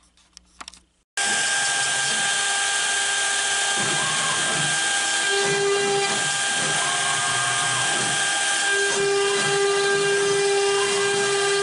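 Air-cooled CNC router spindle running steadily with a whine while a V-bit engraves an oak board. It starts abruptly about a second in, and a lower tone comes and goes partway through.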